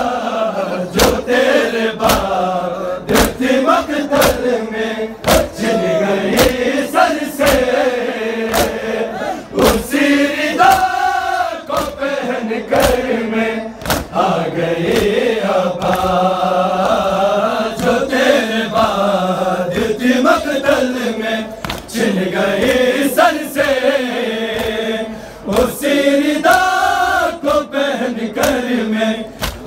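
A crowd of men chanting a Shia noha (Urdu lament) in unison, with sharp slaps repeating in a steady rhythm: mourners beating their chests (matam) in time with the lament.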